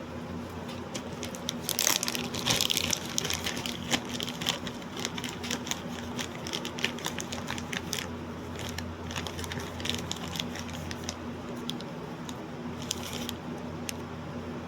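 Irregular clicking and crinkling, densest a couple of seconds in and briefly again near the end, over a steady low electrical hum.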